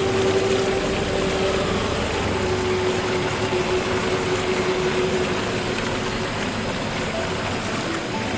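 Steady rushing noise from a forest ambience track, under a single held music tone that fades out about five seconds in.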